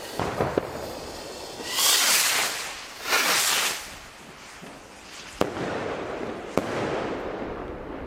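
Two Magnum Apollo Rockets firework rockets in flight and bursting: two loud hissing rushes about a second apart, then two sharp bangs about a second apart, each followed by a noisy tail.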